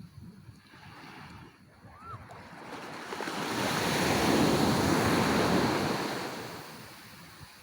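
Sea surf on a beach: one wave washes in, the rushing noise swelling over a few seconds to a peak about halfway through, then fading away.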